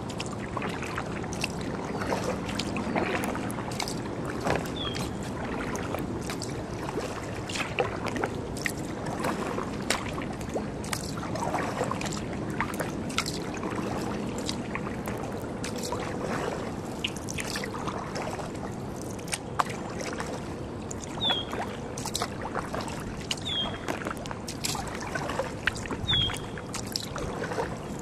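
Sea kayak paddle strokes: the blades dip and splash in the water, with drips and small knocks. A bird gives a short, high, falling chirp once early on and three times near the end.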